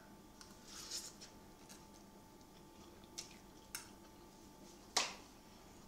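A short slurp of noodles about a second in, then a metal fork clicking against a ceramic bowl: two light clicks, then one sharp clink near the end, the loudest sound.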